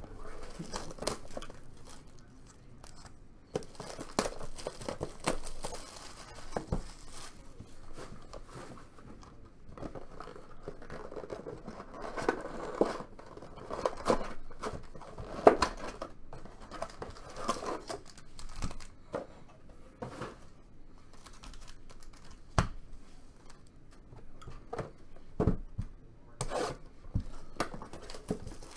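Foil trading-card packs and a cardboard card box being torn and peeled open by hand: irregular tearing and crinkling of the wrapper, with scattered sharp clicks of cardboard and cards being handled.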